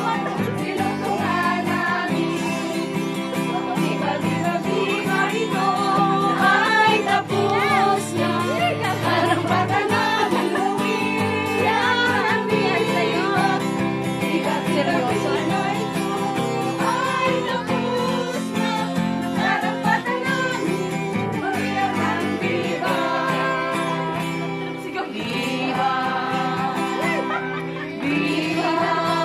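Music with singing: a putong crowning song with several voices over instrumental accompaniment, running on steadily.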